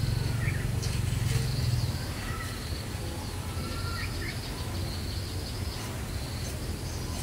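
Rural ambience: a few short bird chirps, about half a second in and again about four seconds in, over a steady high insect buzz and a low rumble.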